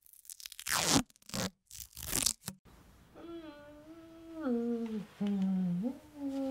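Duct tape torn off the roll in several quick rips, then, from about three seconds in, a voice humming a slow tune, holding notes and sliding down between them.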